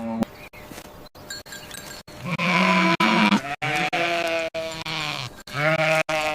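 Sheep bleating: about three drawn-out calls in a row, the last with a wavering, quavering pitch.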